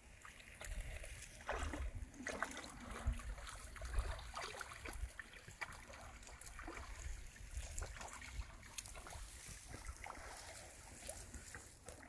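A Border Collie wading into a river and swimming out, its body and legs splashing and sloshing through the water. The splashing is busiest in the first few seconds and lighter once it is swimming.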